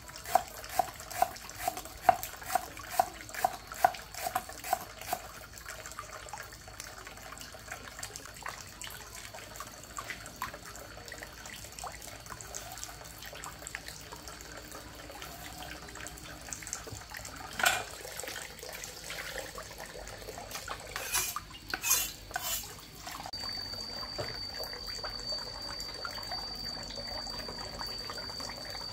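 Running water with the clink and clatter of dishes and utensils being washed. About two knocks a second sound for the first few seconds, there are louder clatters a little past the middle, and a steady high-pitched tone comes in about two-thirds of the way through.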